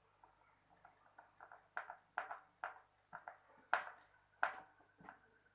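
An irregular series of about a dozen light clicks and taps of small hard objects being handled, the loudest a little past the middle.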